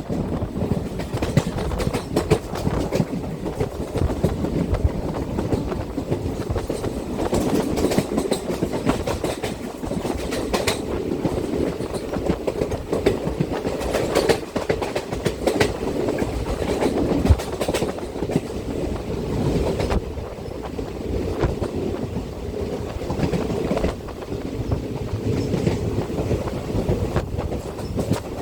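Indian Railways passenger train running, heard from a seat by the window: a steady rumble with the wheels clattering over the rail joints.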